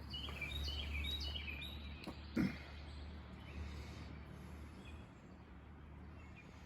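A bird chirping in a quick run of short high notes for the first second and a half, over a steady low hum, with one brief knock about two and a half seconds in.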